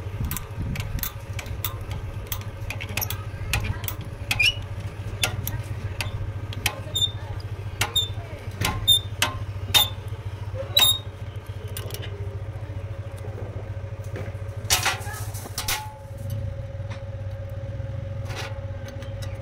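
Sharp metal clicks, about two a second for roughly the first ten seconds, from a homemade threaded-rod spring compressor being wound down on a motorbike shock absorber's coil spring. A short cluster of clicks follows about fifteen seconds in, all over a steady low hum.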